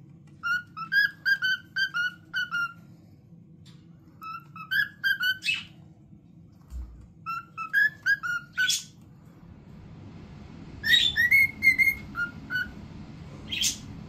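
Cockatiel whistling a tune in four phrases of quick, bouncing whistle notes, with short harsh chirps between phrases; the last phrase sits higher in pitch.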